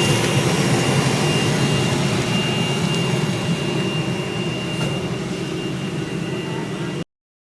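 Flux-cored arc welding: a steady, dense arc noise with a thin high whine over it. It eases a little and cuts off suddenly about seven seconds in.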